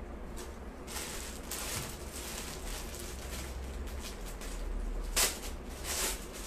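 Rustling of a kurta and dupatta as they are handled and shifted on the body, in irregular swishes with a sharper rustle about five seconds in, over a low steady hum.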